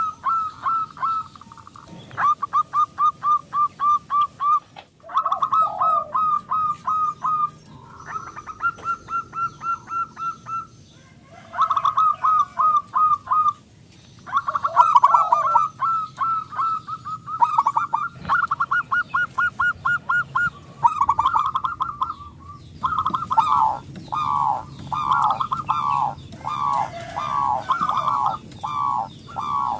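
Zebra dove (perkutut) singing its cooing song: rapid runs of short cooing notes, about five or six a second, in phrases of one to three seconds with brief breaks. Near the end the notes become longer and slide downward.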